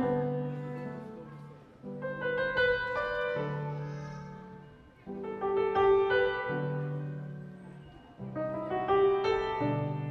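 Background piano music: groups of notes struck together that ring and fade away, with a new phrase starting about every three seconds.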